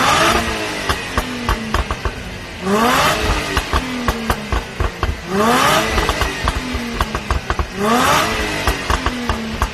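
Range Rover Sport's supercharged V6, tuned to about 400 hp, blipped to high revs three times, roughly every two and a half seconds. As the revs fall back after each blip, the exhaust crackles and pops on the overrun.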